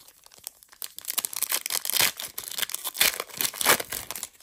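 Foil trading-card pack wrapper being torn open and crinkled by hand: a dense run of sharp crackling rips that starts about a second in and stops shortly before the end.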